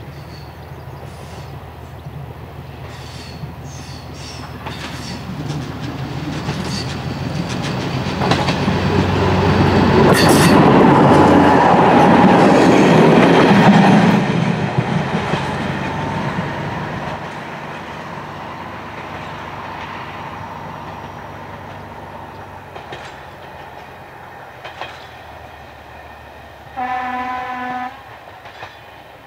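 Class 851 'Krokodýl' diesel railcar approaching and passing, its engine running and wheels clicking over the rail joints, loudest about ten to fourteen seconds in and then fading away. Near the end its horn gives one blast about a second long.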